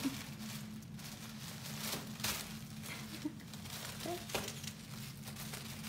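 Quiet room tone with a steady low hum, broken by a few faint, scattered clicks and rustles.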